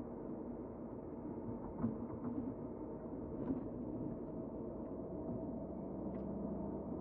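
Steady road and engine drone of a car driving, heard from inside the cabin, with a few light knocks from bumps in the road.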